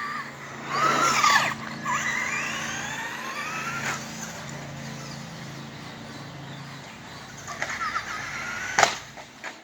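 Brushless electric motor of an Arma Outcast 6S BLX RC truck whining as it speeds up, its pitch rising in a few runs during the first few seconds, then running more steadily. A single sharp knock comes near the end.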